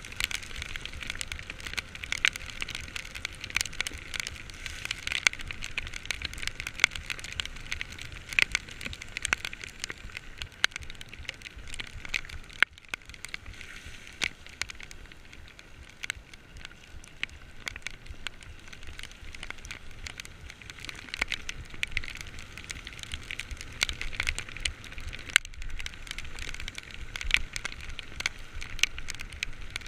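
Heavy rain, with raindrops hitting close to the microphone as a dense run of sharp ticks over a steady hiss.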